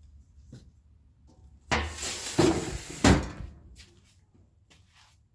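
Handling clatter: a short rustle followed by two knocks, about two and three seconds in, like a cupboard or drawer being shut.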